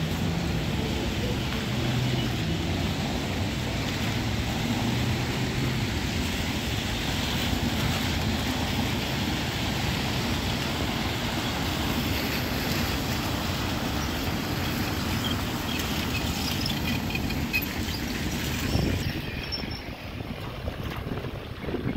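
Steady street traffic: cars driving past on a wet road, the level dropping a little near the end.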